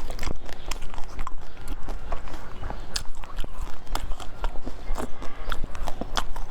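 Close-miked eating: a person biting and chewing cake, with many short, sharp, irregular crackly clicks.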